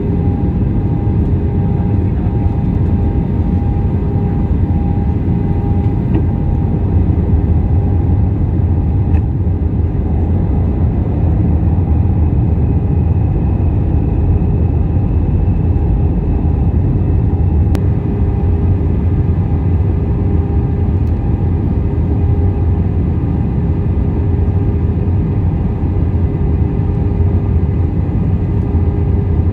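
Cabin noise inside an Airbus A319-112 on approach with flaps extended: the steady drone of its CFM56 engines and rushing airflow, with two faint steady hums over the low rumble.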